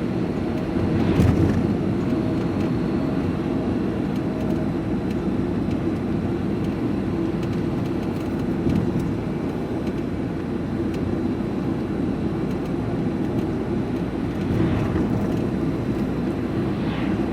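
Steady engine and road noise inside a moving diesel vehicle's cab. It swells briefly louder about a second in and again near the end.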